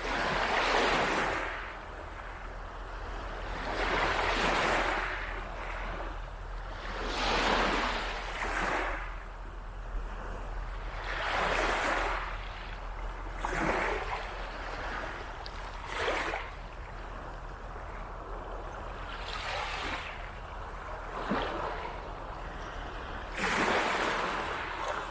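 Small waves breaking and washing up the beach, a swelling wash every three to four seconds with a few short, sharp splashes in between.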